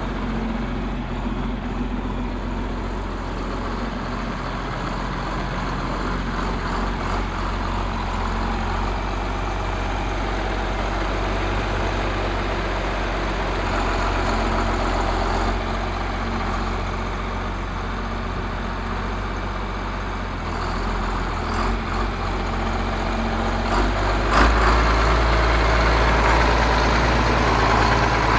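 John Deere 4250 tractor's turbocharged six-cylinder diesel engine running steadily as the tractor is driven. It gets louder and deeper about four-fifths of the way through.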